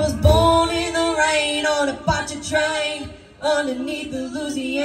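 A woman's lead vocal from a live band, amplified through a PA, singing a sustained, bending melodic line with almost no instrumental backing: the drums and bass sit out, leaving the voice nearly a cappella.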